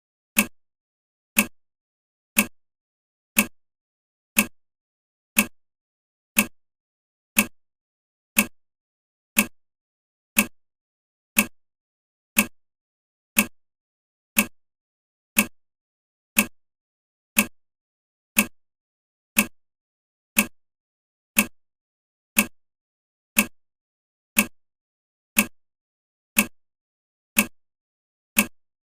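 Countdown timer's tick sound effect: one short, sharp tick every second, perfectly regular, with silence between ticks.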